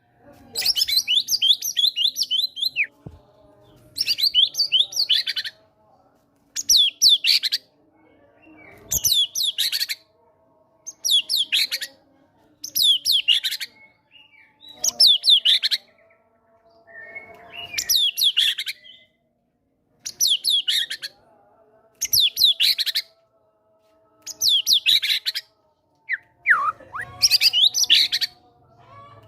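White-rumped shama (murai batu) singing loud, high phrases of rapid sweeping notes, each about one to two seconds long and repeated with short pauses, roughly a dozen times; the phrases are its mimicry of cinereous tit (gelatik batu) song.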